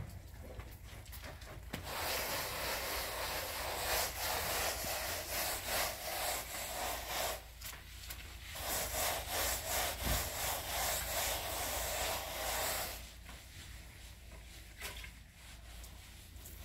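Wooden plastering float rubbed across fresh cement render in repeated scraping strokes. It starts about two seconds in, dips briefly midway and stops a few seconds before the end.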